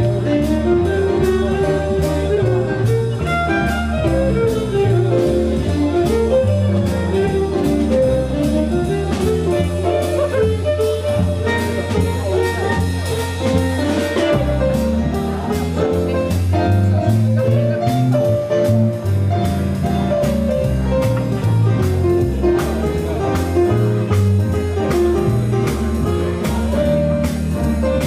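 Live jazz quintet playing an instrumental passage: a double bass moves in steps low under a melody line, over a steady beat.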